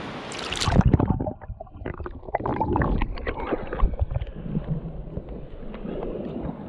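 A splash about a second in as the camera goes under the sea, then muffled underwater gurgling with scattered clicks and knocks.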